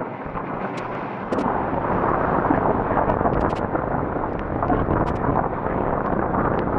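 Wind rushing over a microphone held out of a moving passenger train's window, over the train's running rumble; the noise steps up and grows louder about a second in, with scattered light clicks throughout.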